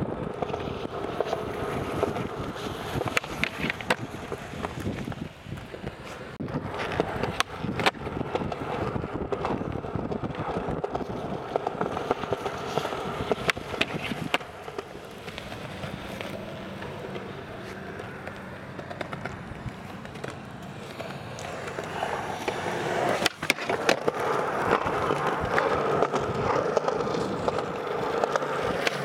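Skateboard wheels rolling over pavement, a steady rumble with occasional sharp clacks.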